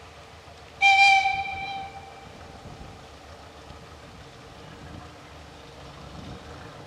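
Narrow-gauge diesel locomotive's horn giving one short blast about a second in. It is loud at first and dies away within about a second.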